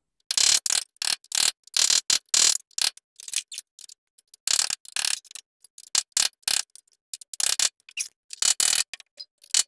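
Rapid, irregular scraping, clinking and knocking of a hand tool against thin rusty sheet steel as the leftover lip of a VW Beetle's old floor pan is chipped and pried out of the tunnel. The sound comes in short chopped snippets with dead silence between them.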